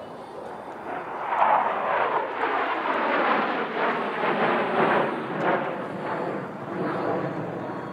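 F-16 fighter jet flying past at an airshow: the jet noise builds about a second in to a loud crackling rush, then slowly fades as the aircraft moves away.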